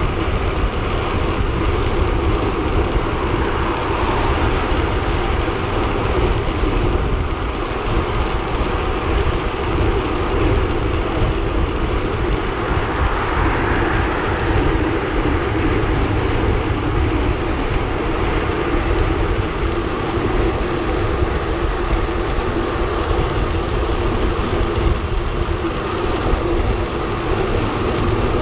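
Steady rush of wind over the microphone of a handlebar-mounted camera, with tyre and road noise, from a road bike riding at speed in a group.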